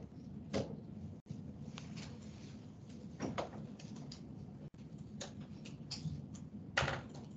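Lecture-room background noise while the audience sets up: a low steady hum with scattered short knocks, clicks and rustles, the loudest near the end.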